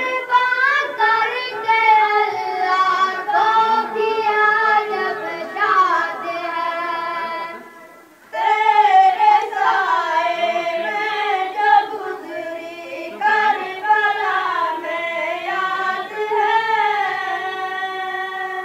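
A boy sings an Urdu devotional anthem solo into a microphone, in a high voice with long, drawn-out melodic notes. He sings two long phrases with a short breath about eight seconds in.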